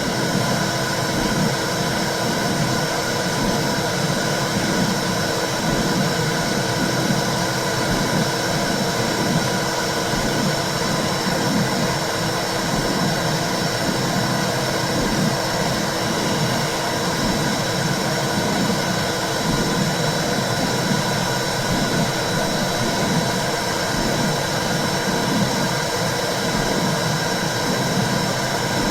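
Womb sound for soothing babies: a steady rushing whoosh with a low, even pulsing beat underneath, like a heartbeat heard through the womb.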